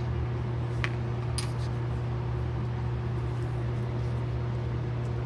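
Steady low mechanical hum, like a fan or motor running, with two light clicks about a second in.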